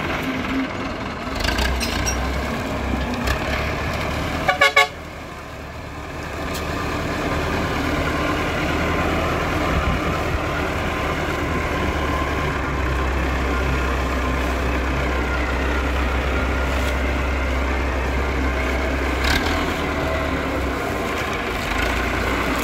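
IMT 577 DV tractor's diesel engine running steadily as it pulls a working corn picker, with a brief high toot about four and a half seconds in.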